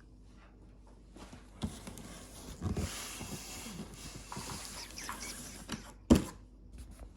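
Rustling and handling noises from a chainsaw box and its packaging being opened, then a single sharp knock about six seconds in.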